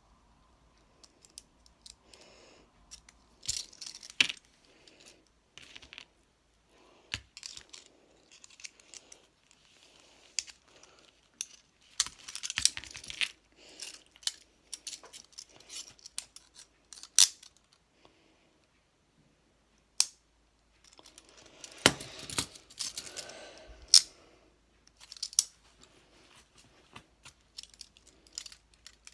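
Metal handcuffs being worked by hand: irregular sharp clicks and short metallic rattles as the cuffs are closed, opened and tried with the key.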